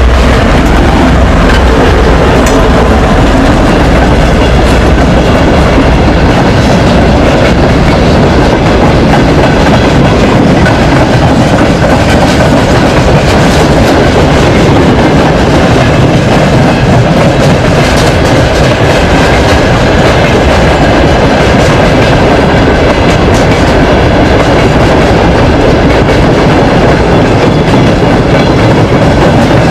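Loaded mineral hopper wagons of a freight train rolling steadily past close by, loud, their wheels clattering over the rail joints. The low rumble of the passing 2M62U diesel locomotive fades within the first second or two.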